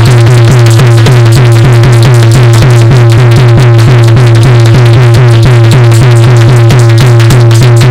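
Dehati folk ensemble playing an instrumental passage without singing: dholak drumming a fast, even beat over a steady low drone from the harmonium, with metal percussion, loud throughout.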